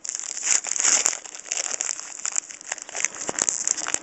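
Trading cards and their foil pack being handled: a dense run of crinkling and sliding with many small quick clicks.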